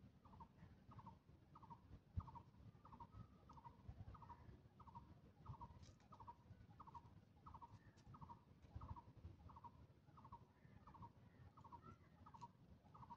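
Faint, steady series of short calls from a distant animal, each a quick buzzy note repeated about twice a second without a break, over a low background rumble. A single soft knock about two seconds in.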